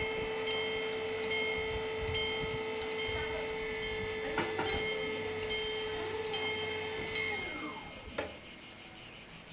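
Level crossing bells ringing, a bright metallic strike roughly every 0.8 s over a steady tone, while the crossing closes for a train. About seven seconds in the ringing stops and the steady tone slides down in pitch and dies away, with a single click shortly after.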